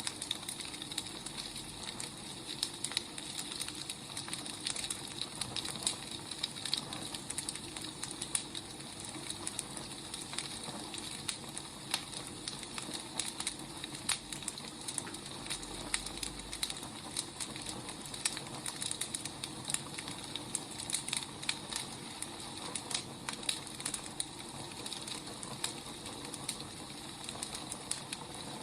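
Burning firewood crackling, with irregular sharp pops and snaps over a steady hiss.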